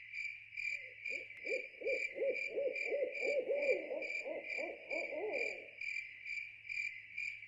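An owl hooting in a rapid run of about fifteen short rising-and-falling notes that starts about a second in and stops near the six-second mark. Underneath runs a steady high pulsing trill of calling insects, about two pulses a second.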